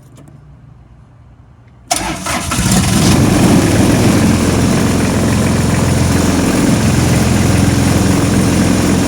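Kubota D905 three-cylinder diesel engine starting about two seconds in: it cranks briefly, catches and settles into steady running.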